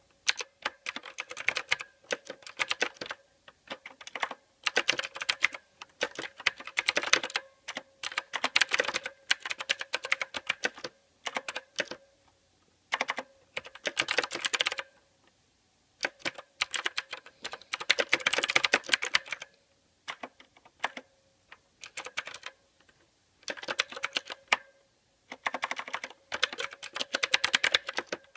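Typing on a mechanical keyboard: rapid runs of key clicks in bursts of a second or two, broken by short pauses.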